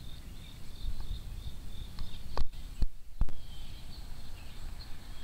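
Insects chirping in a faint, steady pulse of high chirps, about four a second. About halfway through come three sharp clicks, louder than the chirping.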